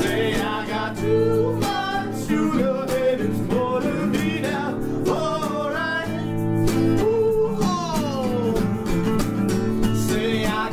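Several acoustic guitars playing a song together: steady strummed chords under a melody line that slides up and down in pitch.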